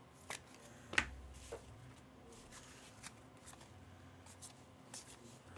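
Trading cards being handled and sorted by hand: faint slides and soft clicks of card on card, with a sharper tap about a second in.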